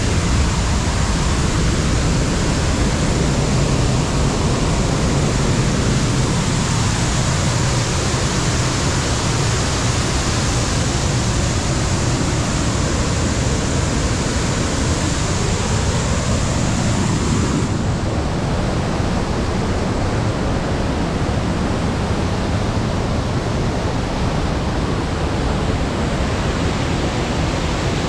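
Steady rushing of a waterfall close by: an even, unbroken hiss with no separate splashes. About two-thirds of the way through, the upper part of the hiss drops a little.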